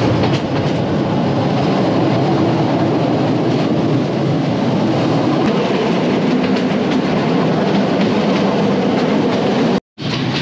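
Local passenger train running, heard from inside the carriage: a steady rumble and rattle of the coach on the rails, broken by a momentary dropout near the end.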